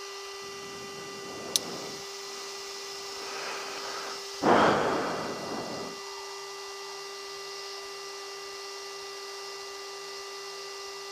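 Steady electrical hum with fixed tones from the aircraft's intercom and radio audio feed. There is a sharp click about a second and a half in, and a louder burst of hiss about four and a half seconds in that fades out over a second or so.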